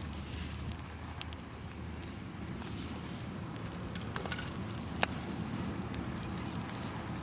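Campfire of burning sneakers crackling, with scattered sharp pops and a sharper one about five seconds in, over a low steady rumble.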